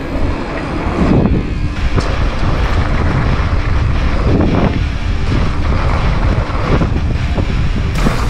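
Downhill mountain bike ridden fast over a dirt and gravel trail: steady rumble of knobby tyres on loose dirt with rattles from the bike, under heavy wind noise on the microphone. Two brief louder swells come about a second in and again about four and a half seconds in.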